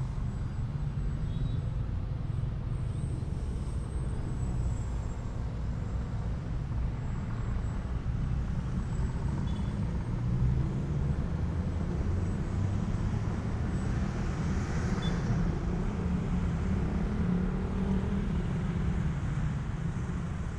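Steady low outdoor rumble with the faint hum of an electric Ugly Stick RC model plane flying overhead.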